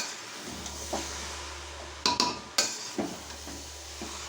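A spatula stirring a cabbage, chicken and potato curry in a pan over a medium flame: a steady sizzle with several sharp knocks of the spatula against the pan, a cluster of them about two seconds in.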